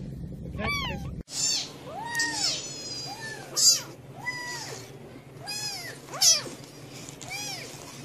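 Young kittens meowing over and over in short, high-pitched cries, about one a second.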